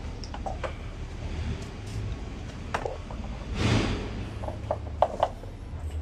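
Metal parts of a motorcycle front end being handled as the fork tubes are worked into the triple clamps: scattered clicks and knocks, a short scraping rush a little past halfway, and a few sharp metallic clinks near the end.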